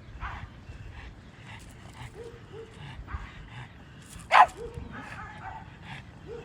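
A dog barking and whining: scattered short yips and whimpers, one sharp loud bark about four seconds in, then a brief whine.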